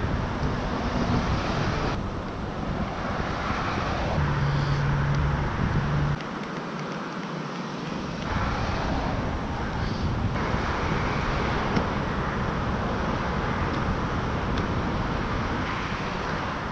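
Steady outdoor noise of road traffic and wind on the microphone. The sound changes abruptly about every two seconds, with a steady low hum in one stretch.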